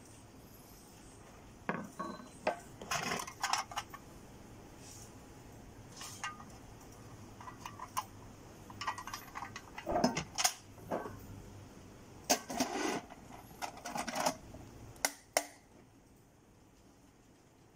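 Stainless steel lunch box being handled: its metal lid and container clattering and knocking, with irregular sharp clicks that stop about fifteen seconds in.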